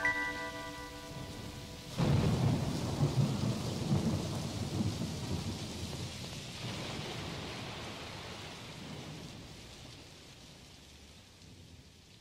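A held musical chord ends about two seconds in, and a thunderclap breaks in, rumbling and slowly fading under a steady hiss of rain.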